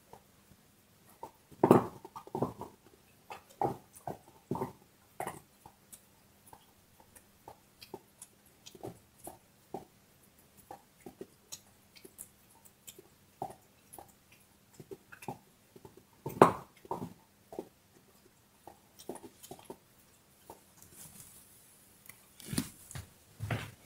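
Dog gnawing on a bone: irregular cracks and clicks of teeth on bone. There are two louder crunches, about two seconds in and about sixteen seconds in.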